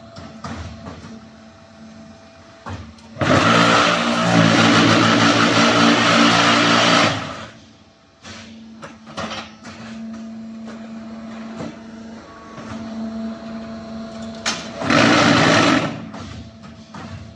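QT4-18 automatic concrete hollow block machine running a moulding cycle: its hydraulic power unit hums steadily, with scattered knocks of the moving mould and pallet. The vibration table shakes the mould with a loud buzz for about four seconds starting about three seconds in, and again briefly near the end, compacting the concrete in the mould.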